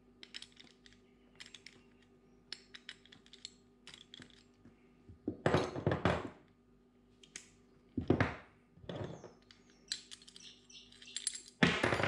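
Metal tool clicks and clinks as a socket ratchet and wrench work the tight lock nut off the spindle of an MKS XC-III bicycle pedal. There are louder clatters about halfway through and again later, as steel tools and parts are put down on a wooden table.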